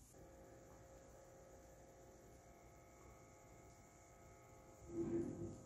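Automatic blood pressure monitor's small pump running as it inflates the cuff: a faint, steady hum. A short, louder sound comes about five seconds in.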